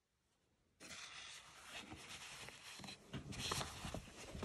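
Handling noise: rustling with small knocks, starting about a second in.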